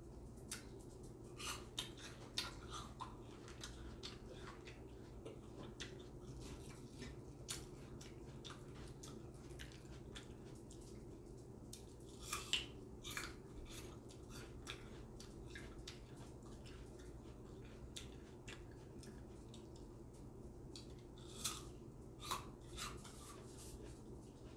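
Close-up eating sounds: a bite into a piece of bread and chewing, heard as three short clusters of crisp clicks over a faint steady hum.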